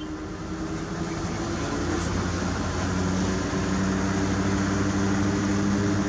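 Mitsubishi Fuso self-loader truck's diesel engine running as the truck drives along, heard from inside the cab, growing louder over the first few seconds and then holding a steady drone.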